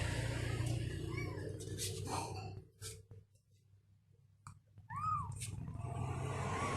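Kitten mewing: a few short, high, rising-and-falling mews, faint at first, with the loudest one about five seconds in, over a steady low background hum.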